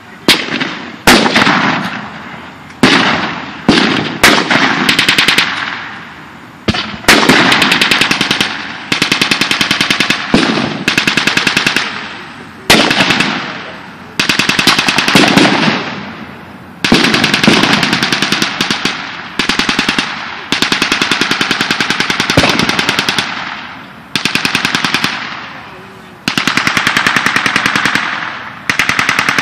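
Machine guns firing blanks in long rapid bursts, with single shots in between. Each burst trails off in echo.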